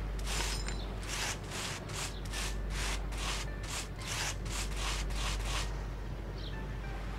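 A cloth rubbing a floor by hand in quick back-and-forth scrubbing strokes, about two a second, which stop about two-thirds of the way through.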